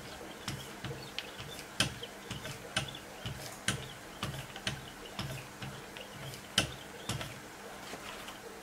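Wicked Edge guided-system paddles stroked by hand, in turns, along both sides of a clamped M390 knife blade. Rhythmic light scraping with sharp clicks about twice a second as the paddles meet the edge and the guide rods. It stops near the end.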